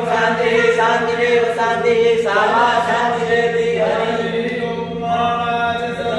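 Voices chanting Hindu mantras together in a continuous recitation, with a steady low tone beneath, accompanying the abhishek (ritual bathing) of Mahadev.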